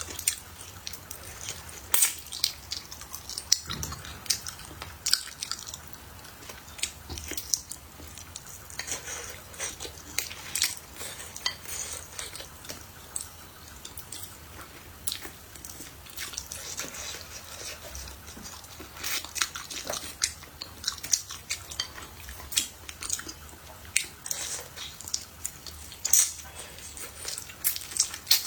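Close-miked chewing and biting of food, with irregular short crunches and sharp mouth clicks.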